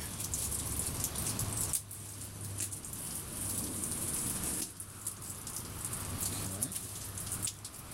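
Packing material and cardboard crackling and rustling as a shipping box is unpacked by hand, with short breaks about two and five seconds in.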